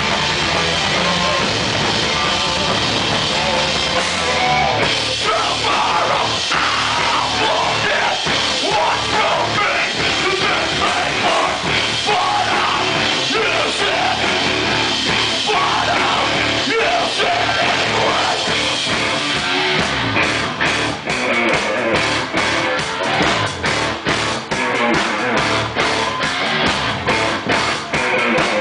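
A heavy rock band playing live and loud: distorted electric guitars and a drum kit, with the singer yelling into the microphone. About twenty seconds in, the drums settle into a fast, even pounding of about four hits a second.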